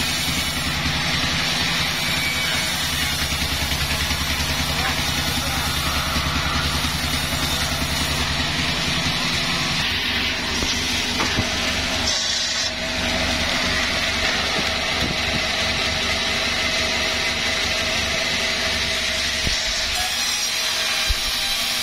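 Sawmill machinery running: an engine thrums with a steady low pulse under the constant noise of the saw, and the engine note shifts about halfway through.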